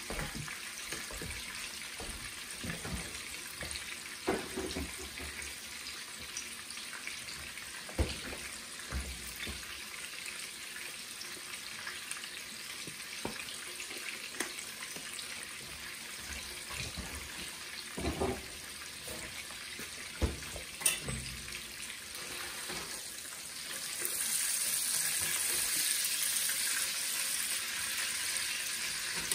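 Blacktail venison steaks sizzling in hot oil in a frying pan: a steady hiss with a few sharp clicks, the sizzling growing louder near the end.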